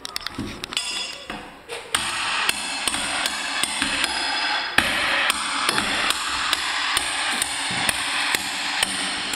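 Background music with a steady percussive beat, about three beats a second, coming in about two seconds in after a few scattered knocks.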